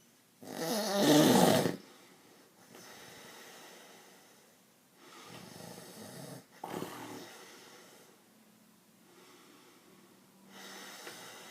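Snoring: one loud snore about half a second in, then several softer snoring breaths a couple of seconds apart.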